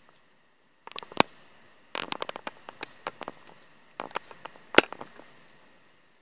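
Hot oil in a frying pan spitting and popping around raw potato wedges as they start to fry: sharp pops in clusters about a second in, from two to three seconds in, and again from four to five seconds in, over a faint sizzle.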